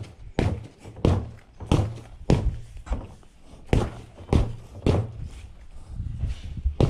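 Boxing gloves punching a freestanding punching bag: a steady run of about ten thuds, roughly one every two-thirds of a second.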